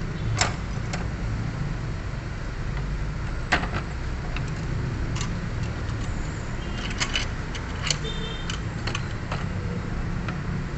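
Scattered sharp metallic clicks and clinks of tools and parts being handled while a steering rack is reassembled, loudest about half a second and three and a half seconds in, with a quick cluster of them later on. A steady low rumble runs underneath.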